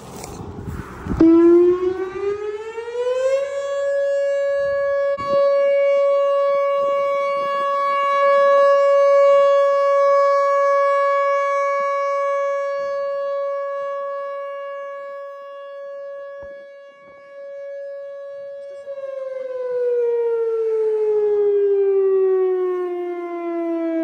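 Whelen WPS 4004 rotating electronic outdoor warning siren sounding a steady alert tone. It winds up in pitch over about two seconds, holds one steady tone, then winds down near the end. Its loudness swells and fades slowly as the horn rotates.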